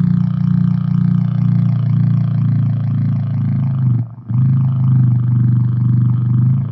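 Low-pitched synth drone box played through an amplifier: a loud, low growling drone. It cuts out briefly about four seconds in, then comes back a little lower in pitch.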